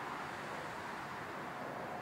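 Jet engines of a four-engine Airbus A340 airliner on the runway: a steady rushing roar that eases slightly as the aircraft rolls past.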